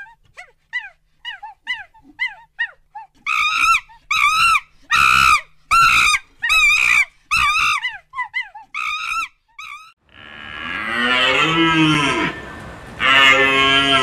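A macaque's rapid series of short, high, arching calls, about two a second, getting louder a few seconds in. About ten seconds in they give way to a different animal's long, low calls that slide down in pitch.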